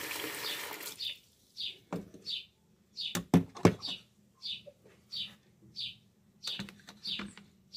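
Tap water running into a bowl of soaking orange peels stops about a second in. Then a small bird chirps over and over, short high chirps about every half second, with a few sharp knocks from handling at the sink partway through.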